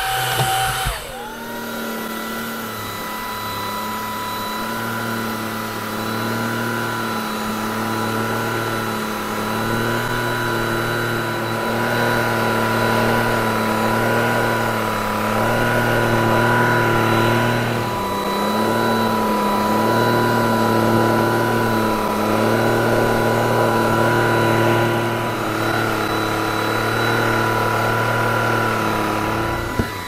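Greenote GSC50 cordless stick vacuum cleaner running on carpet: its motor spins up with a rising whine about a second in, then holds a steady whine while a lower hum rises and falls in pitch every couple of seconds. The rise and fall is the motor slowing on each backward stroke and powering up going forward, for maximum dust pickup.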